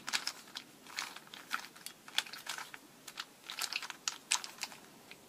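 A Witeden 2x3x4 camouflage cube being turned by hand: its plastic layers give off a run of light, irregular clicks and clacks as they rotate.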